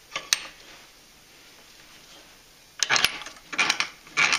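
Bench vise being cranked down on a pair of steel sockets to press the bushing out of a lower control arm: metallic clinks and clanks of tools, a couple right at the start, then a quiet stretch, then three quick bursts of clinking in the last second and a half.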